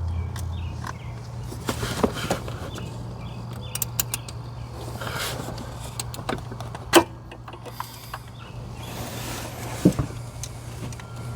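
Scattered sharp metallic clicks and knocks of a socket and hand tools working on a spark plug, the loudest about 7 s and 10 s in, with brief rustles. A steady low hum runs underneath.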